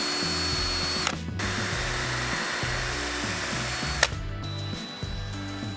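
DeWalt cordless drill driving wood screws through the stool leg into the support piece. It runs in two spells: the first stops about a second in, and the second ends with a sharp click about four seconds in.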